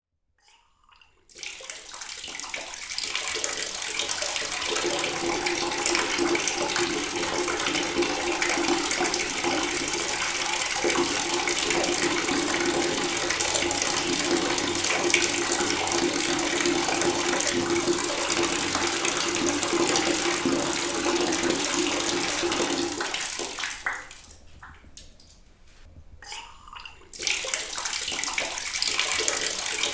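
Water running from a tap in a steady gushing stream, with a steady low tone in it. It starts about a second in. Near the end the flow drops away almost to nothing for about three seconds, then comes back on.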